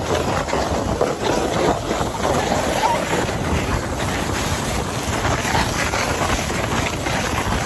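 Toboggan sliding fast down a snowy slope: a steady rushing scrape of the sled over snow, with snow spray and wind buffeting the microphone.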